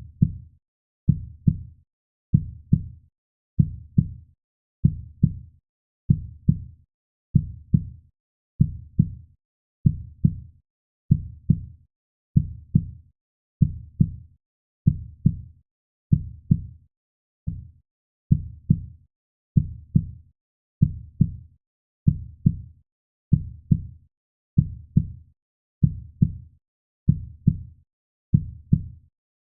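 Heartbeat sound: a steady lub-dub double thump repeating a little more than once a second, low and muffled, with short quiet gaps between beats.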